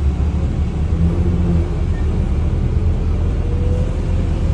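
Wright StreetLite DF bus under way, heard inside the passenger cabin: a steady low rumble, with a faint whine that rises slightly in pitch from about halfway through.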